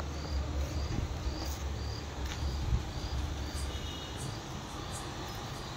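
Cricket chirping steadily at about two chirps a second, with a low rumble underneath.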